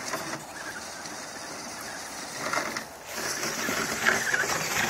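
Axial AX10 Scorpion RC rock crawler's 55-turn brushed electric motor and gears whirring as the truck crawls slowly over ice and snow, louder from about three seconds in.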